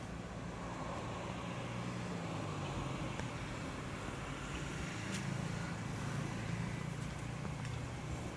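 Steady low motor hum over outdoor background noise, with a faint tick about five seconds in.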